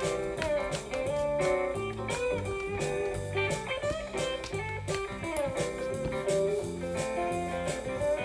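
Background music: a blues-style guitar piece, with bending guitar notes over a steady bass line and beat.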